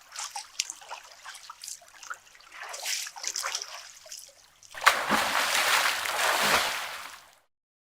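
Water from a pressure washer splashing and spattering, then a louder, steady spray from about five seconds in that cuts off suddenly near the end.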